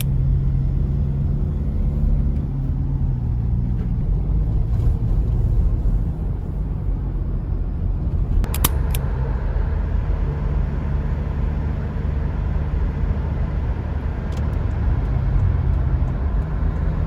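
Car on the move: a steady low rumble of engine and road noise, with a couple of brief clicks about eight and a half seconds in.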